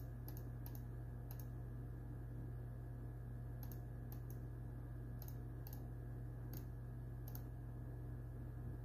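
Faint, irregular clicks, about nine, scattered over a steady low electrical hum.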